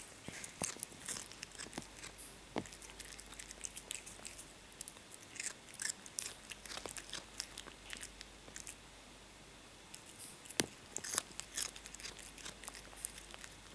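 Cat chewing diced raw cucumber: a string of irregular crunches, with a short lull about eight seconds in and the loudest crunches just after it.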